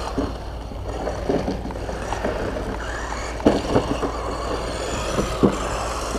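Small RC truck's 390-size brushed electric motor whirring in short bursts as it is driven across grass, over a steady low rumble.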